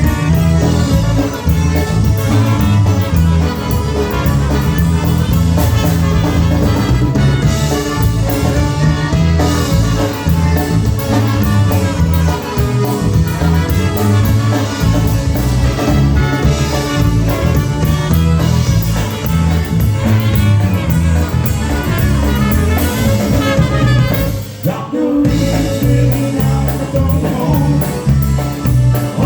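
Live polka band playing an instrumental passage with a steady oom-pah bass and drum kit beat, with a short break about 25 seconds in.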